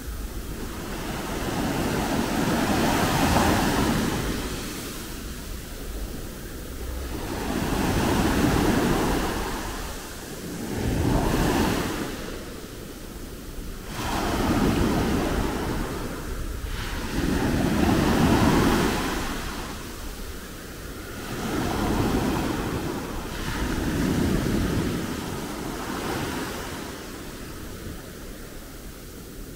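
Small sea waves breaking and washing ashore in repeated swells, one every three to four seconds, with some wind rumbling on the microphone.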